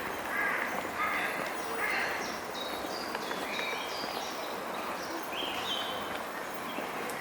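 Songbirds singing: a run of short, high, clear notes that starts about two seconds in, over steady outdoor background noise, with a few lower, harsher sounds in the first two seconds.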